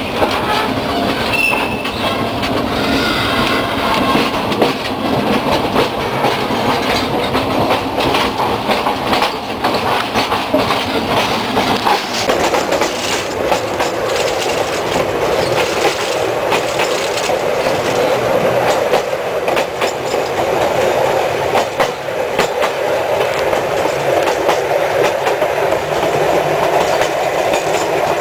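Sóller railway's electric narrow-gauge train running along the track, heard from the open end platform of a wooden carriage: a steady rumble and rattle with the wheels clicking over the rail joints.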